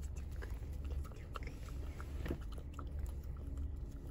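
Italian greyhound puppy lapping whipped cream out of a paper cup, with quick wet licking and smacking clicks, over a low steady rumble in the car cabin.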